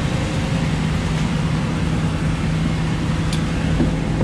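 A steady low hum, with one short sharp click about three seconds in as the locked pickup truck's door handle is pulled.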